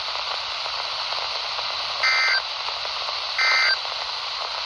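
Weather radio hissing with static, then two short digital data bursts about 2 and 3.4 seconds in, each a steady two-tone squawk about a third of a second long. These are NOAA Weather Radio SAME end-of-message tones, marking the end of the high wind warning broadcast.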